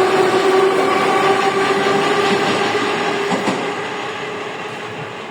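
Moscow Metro 81-717.5 subway train running, with a steady whine from its traction motors over rail and wheel noise and a couple of knocks from rail joints about three and a half seconds in. The sound fades out toward the end.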